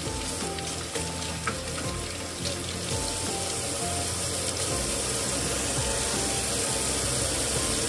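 Kitchen faucet running steadily into a stainless-steel sink, the stream splashing over hands being rinsed under it.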